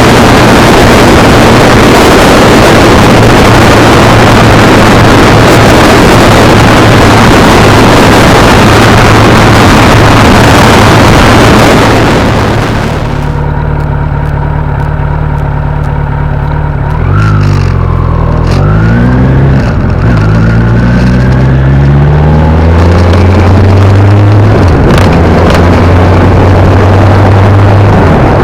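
Kawasaki Z900 inline-four engine heard from the moving motorcycle under loud wind noise at speed. About halfway the wind noise falls away and the engine's steady tone comes through clearly. The revs then rise, dip and rise again several times as the bike accelerates, and the wind noise builds back near the end.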